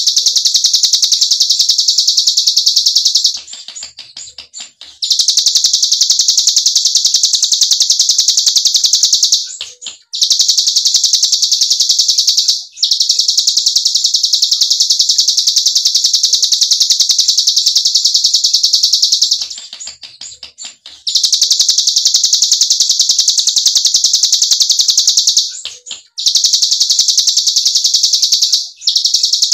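Ciblek gunung (cigun) singing its 'ngebren' song: a rapid, machine-gun-like high trill held for several seconds at a time. It breaks off briefly about five times, the longest pauses coming about 4 s in and 20 s in.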